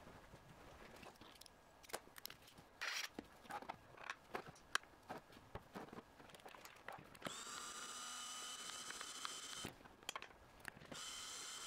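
Light clicks and knocks of plastic parts being handled, then a small GA25-370 DC gear motor running with a steady whine, spinning up about seven seconds in. It stops after a couple of seconds and starts again near the end: a first test run of a 3D-printed tumbler's sprocket drive.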